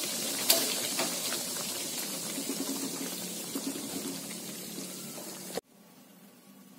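Thick balado chili sauce with beef and eggplant bubbling and popping softly in a frying pan, the stove just switched off, slowly dying down. A single sharp click about half a second in; the sound cuts off suddenly near the end.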